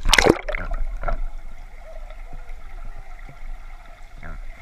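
A loud splash as the camera dips into the swimming pool, then the muffled sound of being underwater: small bubbles gurgling over a faint steady hum.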